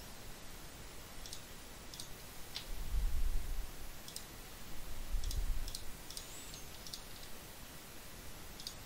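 Computer mouse clicking now and then, several short sharp clicks spread over the seconds. There are low muffled bumps about three seconds in and again around five seconds.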